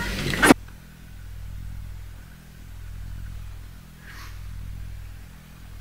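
A low steady hum that swells and fades about every one and a half seconds, with a faint brief sound about four seconds in.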